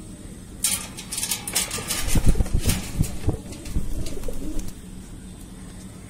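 A young green parrot beating its wings in bursts while held in a hand, with rustling and low thumps of handling, loudest in the middle.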